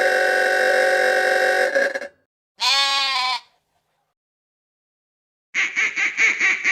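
A long, steady blast of a vintage 1938 Chevrolet coupe's horn, cutting off about two seconds in. Then comes a single wavering bleat of a lamb, and near the end a duck quacking in a quick run of about four quacks a second.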